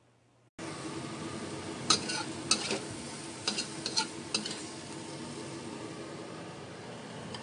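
Squid and green chillies sizzling as they are stir-fried in a hot pan, starting suddenly about half a second in. A spatula clacks sharply against the pan several times between about two and four and a half seconds in.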